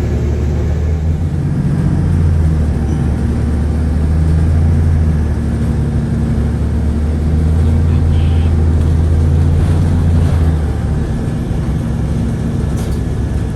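Steady low drone of a car's engine and road noise while driving. The deepest part of the hum eases off about ten seconds in.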